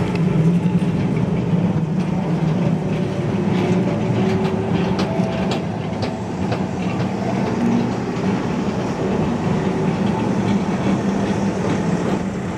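Red heritage electric tram running along street rails, a steady low rumble with a run of sharp clicks from its wheels on the track in the middle.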